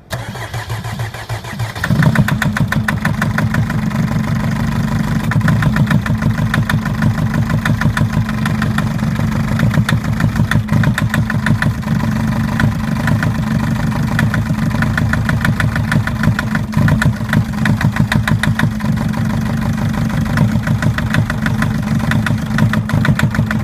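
Mercedes Sprinter's OM611 four-cylinder common-rail diesel cranks for about two seconds, catches and idles with a sharp, rhythmic knock. The knock comes from a failed injector on cylinder one; the knock stops when that injector is shut off.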